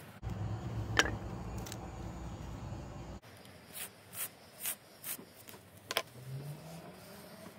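Dental floss being pulled and wrapped around a hazel arrow shaft to bind the fletching, giving a run of about five short rubbing swishes in the second half. Before that comes a low rumble with one sharp click about a second in.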